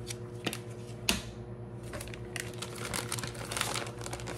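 Crinkling of plastic food packaging being handled: a sharp click about a second in, then a run of small crackles through the second half.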